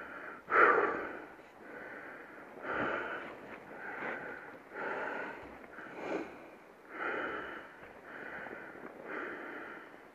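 A motorcyclist's heavy breathing close up, in rhythmic breaths roughly one a second, the strongest about half a second in; the dirt bike's engine is not running.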